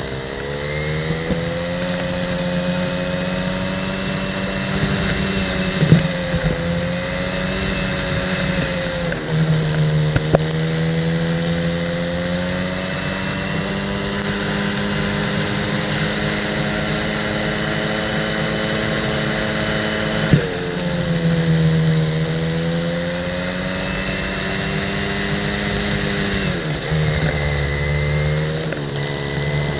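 Go-kart engine running under racing load, its pitch rising as it accelerates and dropping each time it slows for a corner, several times over. A few short sharp knocks.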